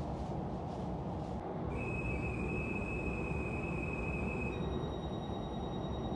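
Conductor's whistle blown in one long steady note of about three seconds, over the low hum of a Dutch double-deck electric train standing at a platform: the departure signal, given as the doors close. A higher steady tone starts as the whistle ends.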